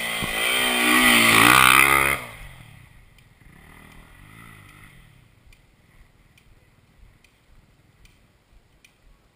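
Enduro dirt bike revving up as it passes close by, its engine note rising for about two seconds, then fading quickly as it pulls away. A fainter engine follows for a few seconds, then only light clicks about once a second.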